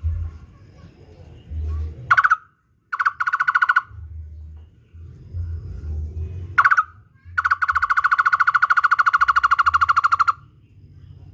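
Barbet (takur) calling in rapid-fire runs of hollow, evenly pulsed notes. A short note comes about two seconds in, then a brief fast run, another short note, and near the end a long, fast trill of about three seconds. A low rumble runs underneath between the calls.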